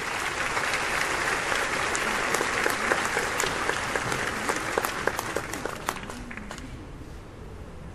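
Audience applauding, with a dense patter of claps that thins and fades out near the end.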